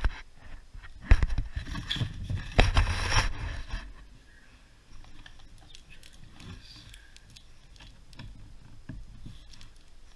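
Close handling noise on a wooden desk: knocks and scraping for the first four seconds, the loudest knock about a second in. After that, quieter ticks and rubbing as a hand works at the end of the tube being unboxed.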